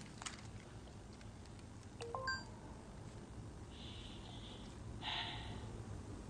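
A short electronic beep that glides up in pitch, about two seconds in, over faint room tone. Two brief soft hissy sounds follow a little later.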